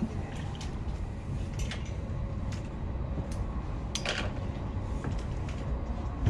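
Outdoor ambience: a steady low rumble with scattered light clicks and knocks, including a small cluster of knocks about four seconds in.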